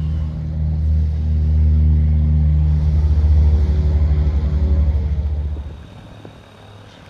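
Airbus AS350B3e (H125) helicopter running close by, its rotor beating in a fast, even low thud over the turbine. It is loud for about six seconds, then drops away sharply near the end.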